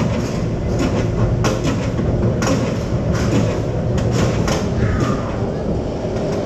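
Kumba's B&M steel roller coaster train rolling slowly into the station: a steady low rumble of the wheels on the track, broken by repeated sharp clunks.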